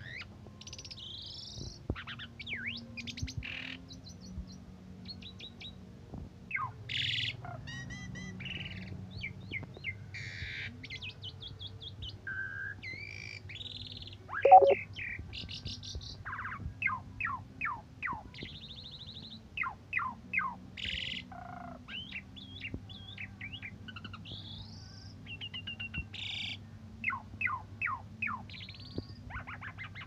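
Asian pied starling singing a long, varied, rambling song of clear whistles, quick rising sweeps, rapid rattling trills and short harsh notes, with one loud, low harsh note about halfway through.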